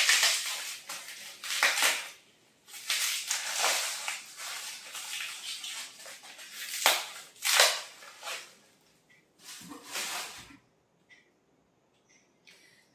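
Plastic wrapping crinkling and rustling in irregular bursts as it is pulled off a bottle by hand, dying away after about eight seconds, with a soft knock near ten seconds.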